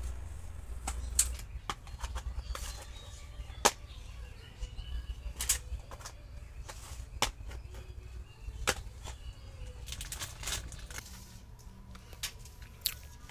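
Scattered clicks and light knocks of kitchenware being handled and set down: plastic tubs with snap-on lids and steel bowls, over a steady low rumble.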